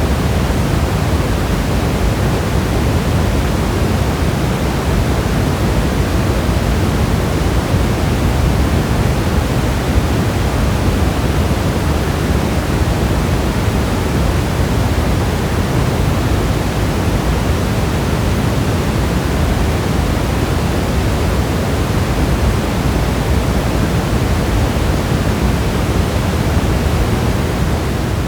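Steady rain sound: a continuous even hiss, heaviest in the low end, with no single drops standing out.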